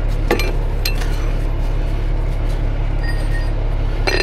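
Metal clinking of a steel shackle and chain being handled while rigging to a truck axle: a couple of sharp clinks about a second in, then a quick cluster near the end. Under it runs the steady low drone of an engine.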